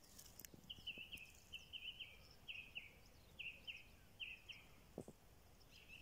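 Faint bird calls: a run of short high notes, about three a second, that stops about two-thirds of the way through, over quiet marsh ambience.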